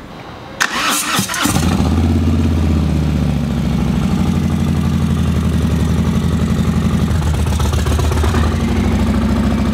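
Harley-Davidson V-twin motorcycle engine starting about a second in, then idling steadily.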